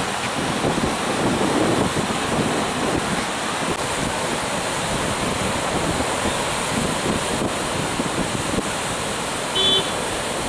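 Sea surf washing and breaking on a beach, a steady rushing noise with wind buffeting the microphone. A brief high tone sounds once near the end.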